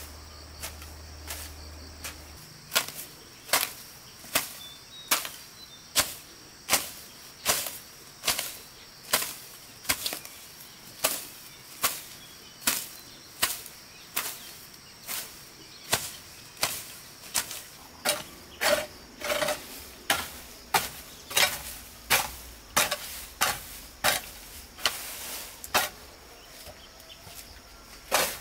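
Steady, evenly spaced blows of a hand tool, a little over one a second, over a steady high drone of insects.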